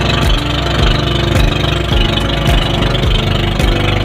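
Outrigger boat's engine running steadily under way, a loud, even drone with a regular low pulse.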